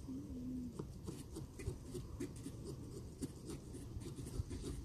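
Faint, irregular scratching and clicking of small pumpkin-carving tools poking and sawing through the pumpkin rind.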